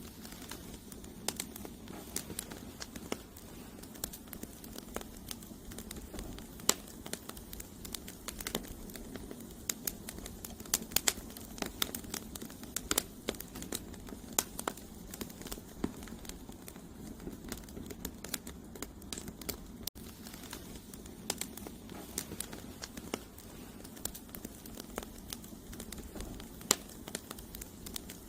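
Wood campfire burning: logs crackling and popping with frequent, irregular sharp snaps over the low, steady sound of the flames.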